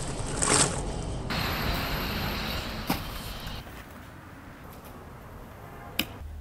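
Dry mortar powder pouring from a bag into a plastic bucket with a hissing rush, then a trowel scraping through wet mortar in the bucket, with two sharp knocks, one about three seconds in and one near the end.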